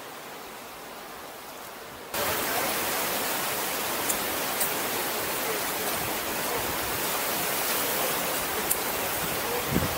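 Steady rushing of the Niagara River rapids. The noise jumps abruptly louder about two seconds in, and a few light clicks show over it later on.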